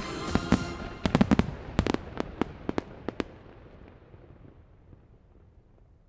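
Music stops about a second in, leaving a string of fireworks bursting: about a dozen sharp cracks over two seconds, then a rumbling echo that dies away.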